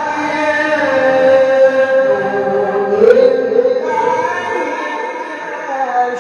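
A man's solo melodic Quran recitation (tilawah): long, held, ornamented notes that glide slowly in pitch. The phrase breaks briefly about three seconds in, and a new held phrase begins.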